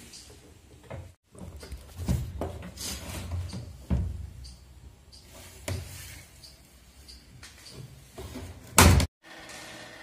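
Irregular knocks and clunks of hard parts being handled and set down. The loudest is a sharp hit near the end, and a faint steady hum follows it.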